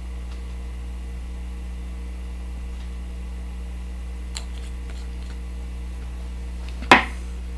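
Steady low mains hum, with a faint tick about four seconds in and one sharp click near the end.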